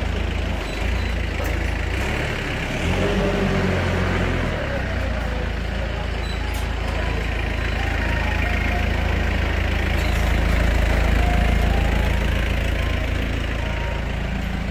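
A heavy engine idling steadily with a deep, continuous rumble, wavering briefly a few seconds in and swelling slightly about two-thirds of the way through.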